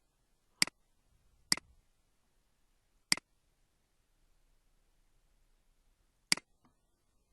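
Computer mouse clicked four times, single sharp clicks at uneven intervals, the first two close together.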